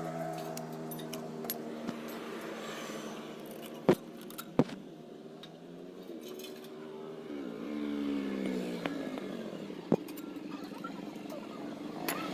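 Motorcycle engine running, its pitch dipping and rising again about three-quarters of the way through, with a few sharp metallic clicks.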